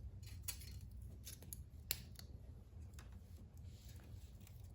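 Faint, scattered metallic clicks and light scraping of a feeler gauge being handled and slid into the valve lash gap at a small generator engine's rocker arm, the sharpest click about two seconds in.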